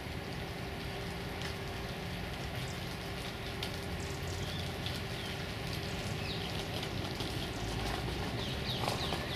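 City-park ambience: a steady low rumble of distant traffic with a faint steady hum, and scattered short, high chirps of small birds, a few more together near the end.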